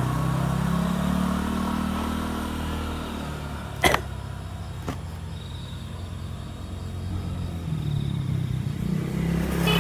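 A motor vehicle engine running with a steady low hum. It fades over the first few seconds and swells again near the end. Two sharp clicks sound about four and five seconds in.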